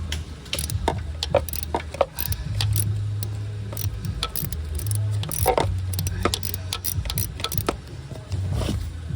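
Irregular metallic clicks and clinks of hand tools working a snapped bolt out of an engine block with a Torx bit hammered into it, over a steady low hum.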